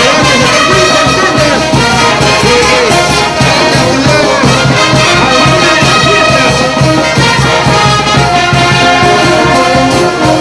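Festival brass band playing huaylas dance music: trumpets and trombones carrying the tune over a steady beat.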